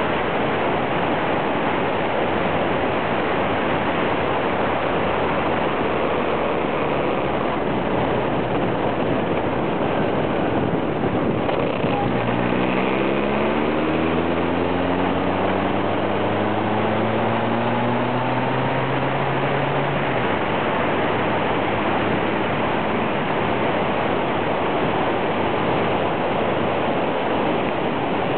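Motorcycle at road speed: steady wind rush and road noise on a bike-mounted microphone. About twelve seconds in, the engine's note comes up and rises steadily in pitch for about eight seconds, as when the bike accelerates, then drops away.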